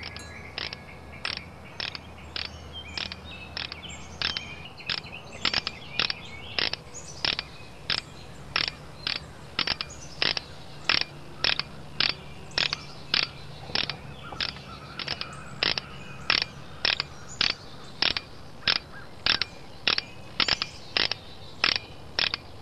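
Steady, even clicking, about two clicks a second, the rolling sound of a cartoon wrench bike, described as clickety.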